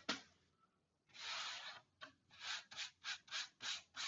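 Hand sanding of a compressed-sawdust block, rubbed back and forth: one longer stroke, then quicker strokes about three a second.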